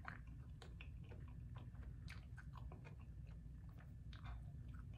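Faint close-up chewing: soft, irregular mouth clicks and smacks of a person eating.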